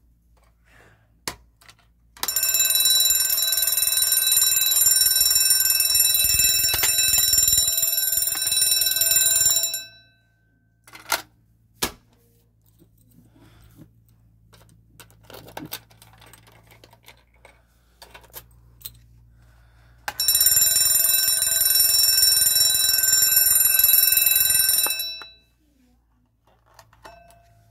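Red electric fire alarm bell ringing loudly for about seven seconds, then stopping. After a pause with a couple of sharp clicks, it rings again for about five seconds.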